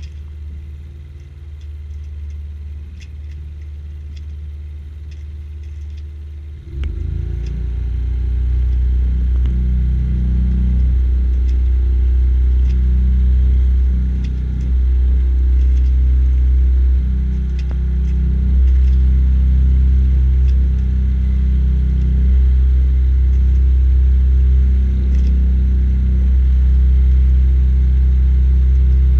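A sailboat's engine running while motoring, a steady low drone that suddenly gets louder about seven seconds in and then holds at the higher level.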